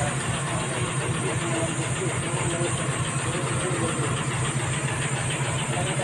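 Vehicle engine idling with a steady, even low hum.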